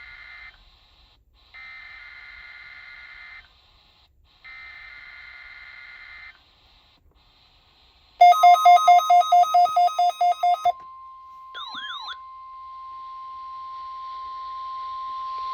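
NOAA Weather Radio weekly test alert: the tail of the SAME digital header, three short bursts of warbling data tones a second apart, then after a short pause the steady 1050 Hz weather-radio alert tone. A loud rapid beeping, about eight beeps a second, sits on the tone's first two and a half seconds.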